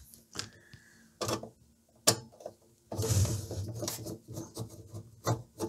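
A screwdriver turning out the screws that hold an amplifier's metal lid, with scattered clicks and knocks of the tool against the case and a longer grating stretch about three seconds in.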